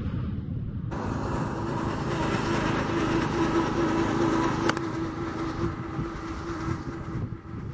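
Steady mechanical rumble with a low hum, like a running engine or passing traffic, starting about a second in after the tail of a whoosh, with one sharp tick about two-thirds of the way through.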